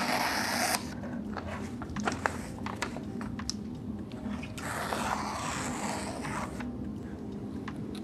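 Freshly sharpened edge of a SOG Terminus folding knife slicing through a sheet of paper: a hissing rasp that cuts off about a second in, light paper rustles and clicks, then a second slice of about two seconds near the middle. It is a paper-cutting test of the edge after finishing on a 3000 grit stone and removing the burr.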